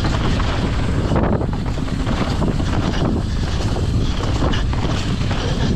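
Heavy wind noise buffeting the microphone of a downhill mountain bike ridden at speed, with a steady run of knocks and rattles from the bike over rough trail.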